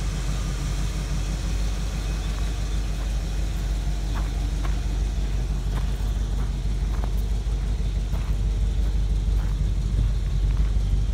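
1955 Chevrolet pickup's engine idling with a steady low rumble, growing a little louder near the end, with a few faint ticks over it.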